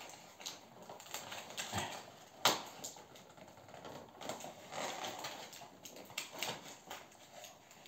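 Cardboard box being opened by hand, its flap and tape pulled and picked at: irregular scratching and crackling, with one sharp snap about two and a half seconds in.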